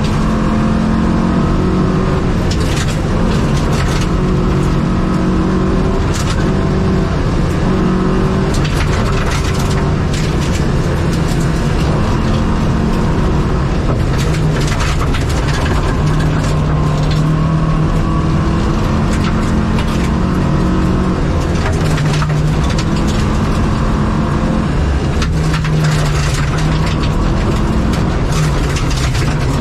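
Opel Rallye Kadett's engine running hard under full load, its pitch climbing and dropping with gear changes, heard from inside the cabin. Loose gravel cracks and rattles against the underbody.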